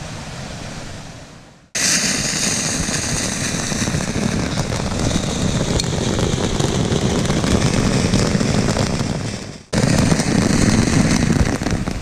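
Ground fountain firework spraying sparks with a loud, dense crackling hiss that starts abruptly about two seconds in, after a softer steady rush. It breaks off for an instant near the end and comes straight back.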